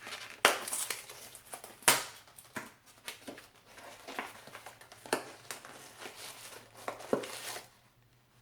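Packaging crinkling and rustling as it is handled and unwrapped: irregular sharp crackles, loudest in the first couple of seconds, that stop shortly before the end.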